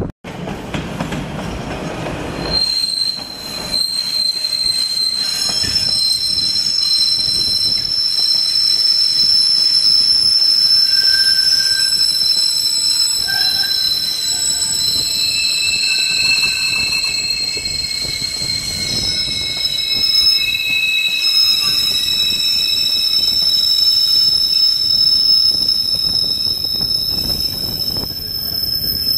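Kawasaki B-IV subway train rounding a tight loop curve, its steel wheels squealing against the rail in several high-pitched tones that shift and overlap over the rumble of the wheels on the track. The squeal comes from wheel flanges grinding on the sharp curve.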